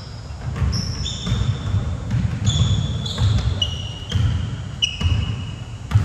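Basketball bouncing on a gym floor in irregular thuds, with sneakers squeaking in short high squeals several times through the play.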